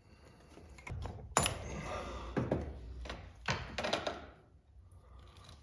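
A few sharp metal knocks and clunks as the cylinder head of a Polaris 400 two-stroke engine is worked loose and lifted off, the loudest knock about a second and a half in, with handling noise between them.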